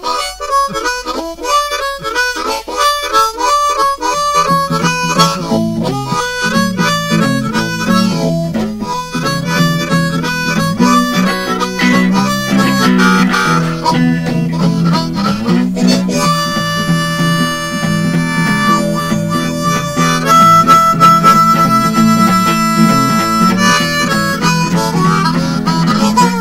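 Blues harmonica playing an improvised line, alone at first, with a guitar joining about four seconds in to accompany it. In the second half the harmonica holds several long notes.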